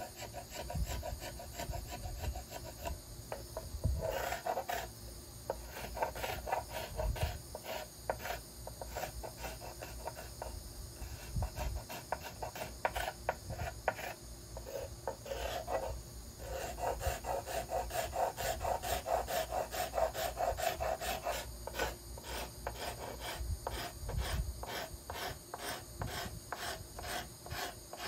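Steel card scraper shaving the arch of a violin plate: a run of short, quick scratchy strokes on the wood, with a few longer, smoother passes part-way through. This is the final smoothing of the arch after planing.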